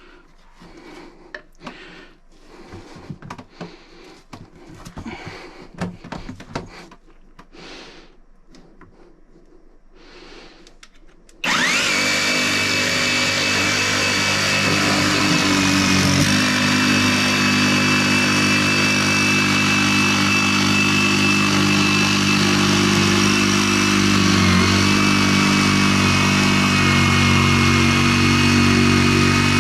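Faint knocks and handling clicks, then about eleven seconds in a Greenworks cordless jigsaw starts abruptly and runs steadily with a high motor whine. It is cutting an angled cut through thick chipboard.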